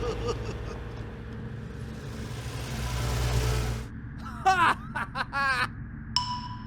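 Cartoon vehicle engine sound effect, a rumbling noise that builds for about four seconds and then cuts off suddenly. It is followed by a few short squeaky, chattering character-voice sounds and a held electronic tone near the end.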